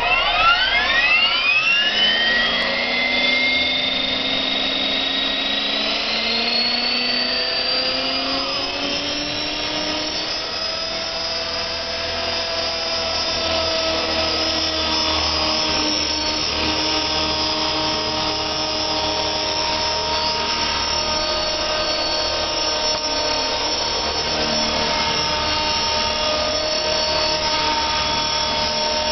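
Align T-Rex 450 Pro electric RC helicopter spooling up: a whine that climbs steeply in pitch over the first couple of seconds as the rotor comes up to speed. It then runs on as a steady high whine with several tones.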